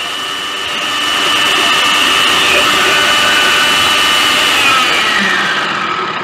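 Prestige Endura 1000W food processor's motor and chopping blade running at speed, finely chopping cauliflower in the chopper jar: a loud, steady whine. It begins to wind down right at the end.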